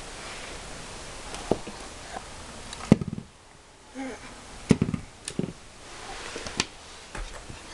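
A few dull knocks and thuds on a hardwood floor as a baby bangs an apple and its hands on the boards. The loudest knock comes about three seconds in, followed by a quick cluster of knocks a couple of seconds later.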